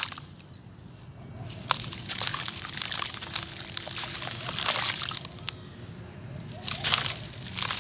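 Dry, gritty charcoal powder poured from a hand and sifting into a shallow tray of water: a soft hissing patter with small grainy clicks, in separate pours with short pauses, the loudest near the end.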